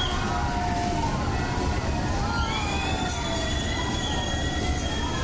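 Nilgiri Mountain Railway toy train running with a steady low rumble, overlaid by several long, high-pitched squeals that slowly waver in pitch, typical of steel wheels squealing on a tight curve.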